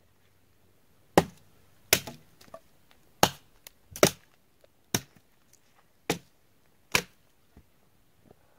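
Axe chopping into a wooden pole: about seven sharp strikes, roughly one a second.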